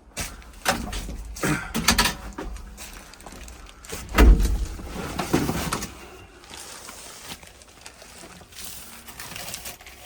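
Clicks, knocks and scrapes of hands working panels and parts in an excavator cab to get at the air-conditioner filter, with one heavy thump about four seconds in.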